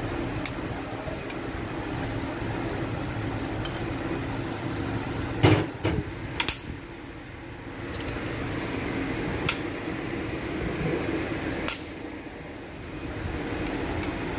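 A steady machine hum with several sharp clinks, likely tools or parts knocking on metal during an engine teardown. The loudest clinks come a little over five seconds in, with single ones near the middle and toward the end.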